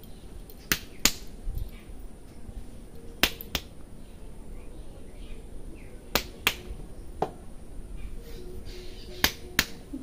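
Hair cracking during a head massage: locks of hair gripped and tugged sharply against the scalp, each tug giving a sharp crack. The cracks come mostly in quick pairs, every three seconds or so, nine in all.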